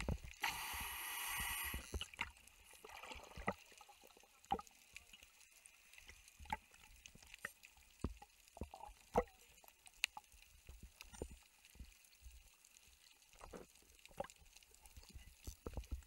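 Underwater sound: a brief rush of bubbles about half a second in, then sparse faint clicks and pops.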